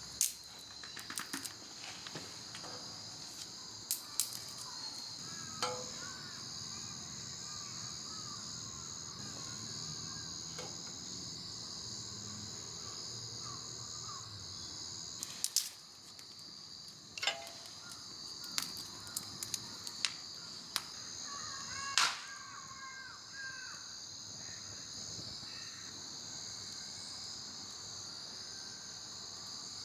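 Steady high chirring of crickets, with a dozen or so sharp clicks and cracks scattered through it, the loudest about two-thirds of the way in.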